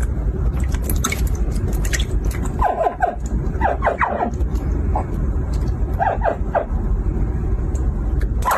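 Hatchling crocodiles giving short chirping calls in little clusters, near three seconds, four seconds and six seconds in, over a steady low rumble.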